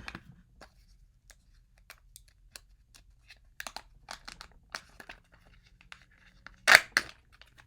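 Plastic wrapping crinkling and tearing as a Kinder Joy egg and its toy capsule are opened by hand. There are scattered small crackles and clicks, then two sharp, louder rips near the end.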